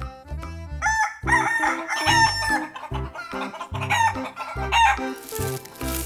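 A rooster crowing, with chicken clucks around it, starting about a second in, over light background music.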